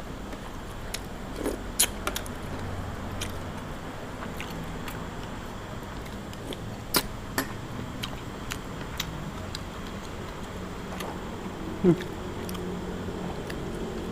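A person eating, with scattered short, sharp clicks and clinks over a steady low hum; the loudest comes near the end.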